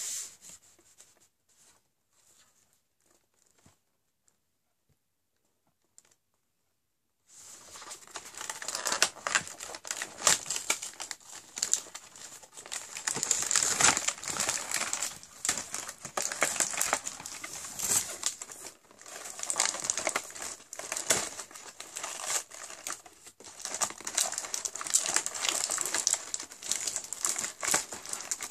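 Near silence for about the first seven seconds, then close-up, continuous rustling and tearing of cardboard as the perforated doors of a paper advent calendar are picked at and pried open by hand.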